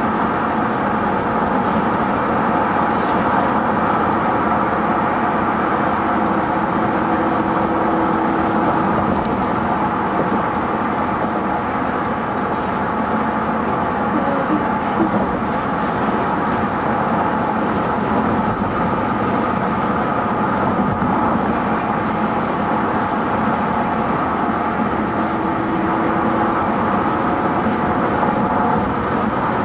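Steady road noise and drivetrain hum inside a pickup truck's cab at highway speed, with the tyres running on concrete pavement while the truck tows a camper.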